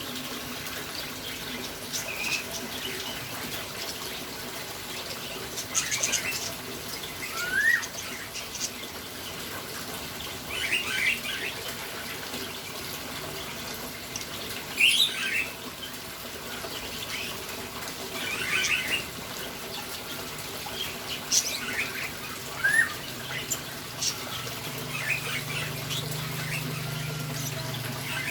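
Lovebird giving short chirps and squawks every few seconds, with a couple of quick rising notes, over a steady hiss like running water. A low hum comes in near the end.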